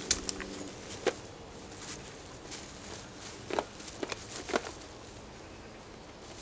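About half a dozen sharp crackles and rustles: a shemagh knotted into a carrying pouch being lifted and slung over the shoulder, with feet shifting on damp leaf litter. The loudest come near the start and about a second in, with a few more around three and a half to four and a half seconds in.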